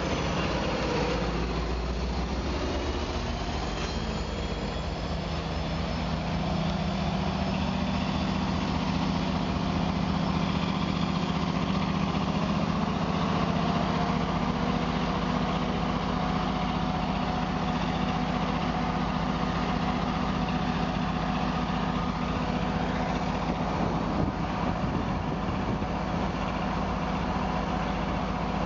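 Tri-Rail commuter train's diesel locomotive idling at the platform with a steady low drone, after the train's last clatter dies away in the first few seconds.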